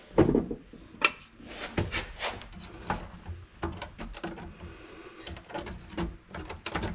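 A string of irregular knocks and light clunks: a loose sheet-steel patch piece being set, shifted and tapped in the cut-out of the car's floor pan while it is test-fitted. The loudest knocks come near the start and about a second in.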